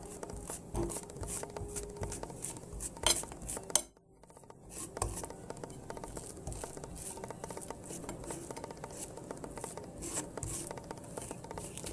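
Table knife scraping and clicking against a plate while spreading butter and jam on pancakes, with a few louder clacks about three seconds in. The sound drops out briefly just before four seconds, and a faint steady hum runs underneath.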